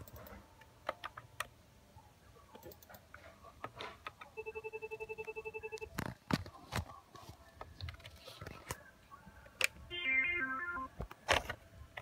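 Cisco CP-8945 IP desk phone playing ringtone samples: a fast trilling tone of about ten pulses a second, lasting about a second and a half, midway through, then a short run of quick stepping notes near the end. Scattered clicks and knocks are heard between them.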